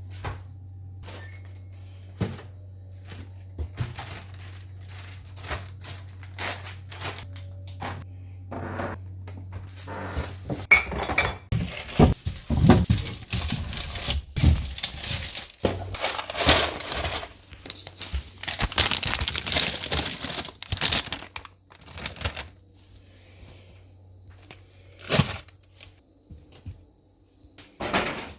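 Groceries being unpacked and put away: plastic bags and packaging crinkling and rustling, loudest for about ten seconds in the middle, among scattered knocks and thunks of items being set down and doors or drawers shutting. A low steady hum runs underneath for the first third.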